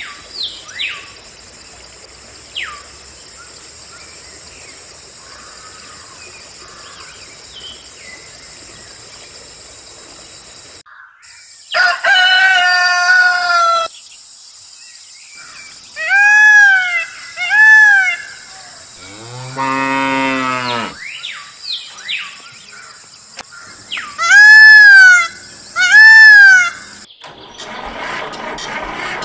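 Farm animal calls: a deep cow moo about two-thirds of the way in, among several higher rise-and-fall animal calls, most of them in pairs, the loudest pair near the end. Faint short bird chirps near the start.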